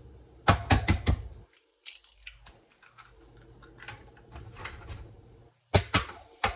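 Eggs being tapped and cracked against the rim of a mixing bowl: a quick run of sharp taps about half a second in, faint small ticks and shell handling, then another run of taps near the end.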